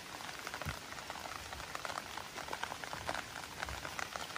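Steady rain falling on shallow river water, a dense, irregular patter of small drop ticks.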